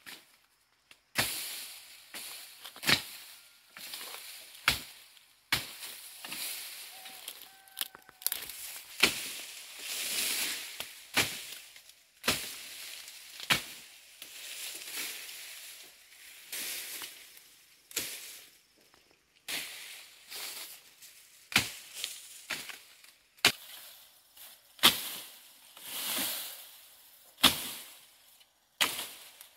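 A blade slashing through tall grass and brush while clearing undergrowth: sharp strikes roughly every second or two, each with a rustle of cut vegetation.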